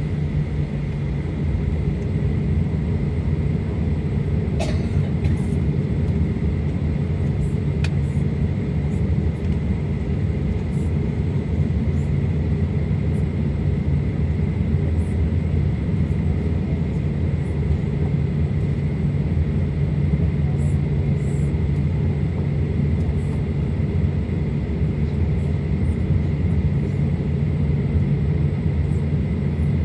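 Steady cabin rumble inside a Boeing 737-900 as it taxis, its CFM56 engines at idle with a steady low drone and a thin high whine. There is a faint click about five seconds in and another near eight seconds.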